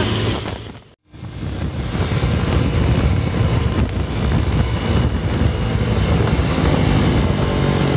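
A steady high whistle from the Sinar Jaya bus's seruling (whistle horn) over engine noise, ending abruptly about a second in. After that comes the steady rumble of engine, road and wind noise from the moving vehicle carrying the microphone.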